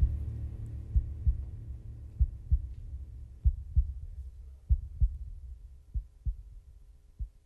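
Fuel storage tank explosion: a sudden deep boom that rumbles and dies away over about three seconds. Short low thumps recur every half second or so throughout.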